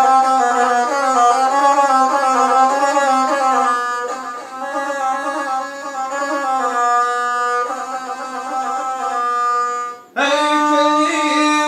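Gusle, the single-string bowed folk instrument, played in an ornamented, wavering melody. About ten seconds in the bowing breaks off briefly, and the player's singing voice comes in with the gusle.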